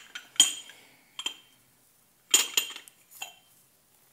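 Porcelain mug and its lid knocking together as they are handled: about five sharp, ringing clinks, the loudest about half a second in and another near the middle.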